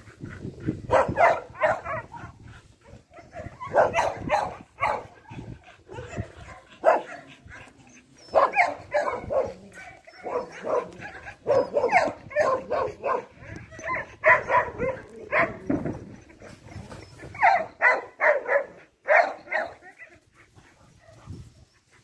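A dog barking in quick runs of several barks, again and again, with short pauses between the runs.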